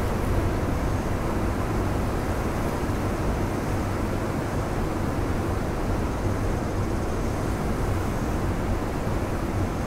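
Heavy ocean surf breaking over a rocky shore: a continuous low rush of waves with no single crash standing out.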